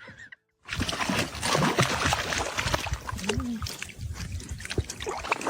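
Water splashing and trickling, with many small knocks and splashes.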